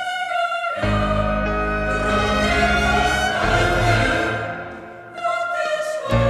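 Orchestral arrangement of a song, with bowed strings to the fore; the music thins out about five seconds in, then swells again.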